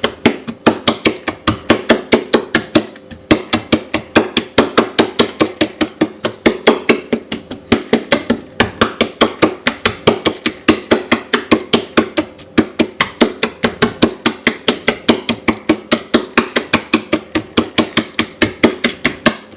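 Chicken thighs being pierced over and over with a pointed tool, each stab knocking through the meat onto the board or tray beneath, in a fast even tapping of about five knocks a second.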